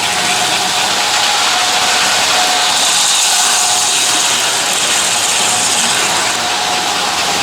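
American Flyer S-gauge model train running on its track: a steady motor hum and whine over the rattle of the wheels on the rails. A brighter hiss rises about three seconds in and fades out a little after six seconds.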